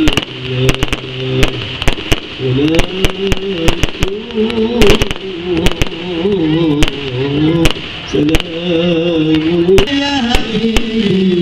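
Fireworks bursting and crackling in many quick, irregular bangs, over a voice chanting a wavering melody.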